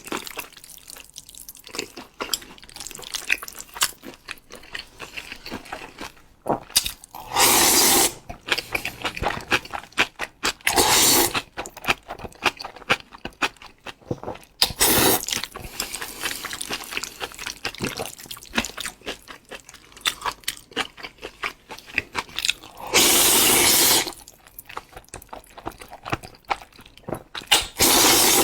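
A person eating spicy instant noodles: wet chewing and mouth clicks throughout, broken by loud slurps about five times, each lasting up to a second.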